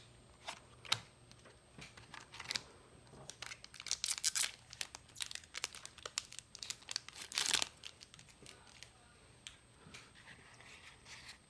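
Trading card booster pack's foil wrapper being torn open and crinkled, with small rustles and clicks of handling. The tearing is loudest about four seconds in and again shortly before eight seconds.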